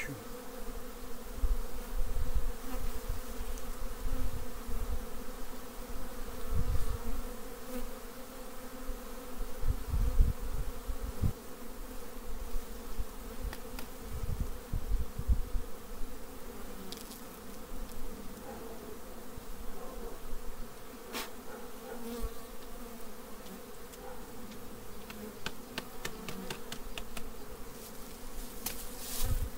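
Steady buzzing hum of a honeybee colony, Carniolan (Carnica) bees, around an opened hive during a frame inspection. Irregular low thumps run underneath, and a few sharp clicks come near the end.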